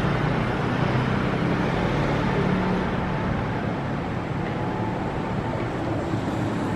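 Steady urban background noise, mainly a low rumble of road traffic.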